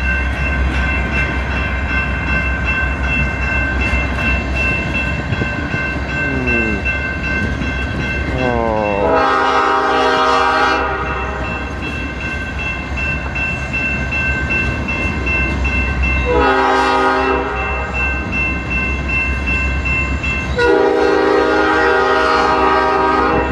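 Freight train cars rumbling and clacking past on the rails, with a steady high whine underneath. A multi-chime locomotive horn sounds three blasts: a long one about nine seconds in that slides up in pitch as it starts, a short one around seventeen seconds, and another long one near the end.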